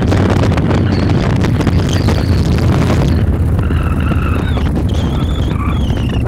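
Victory Highball's V-twin engine running at a steady cruise, a low rumble mixed with heavy wind buffeting on the microphone. A wavering higher tone comes in about halfway through.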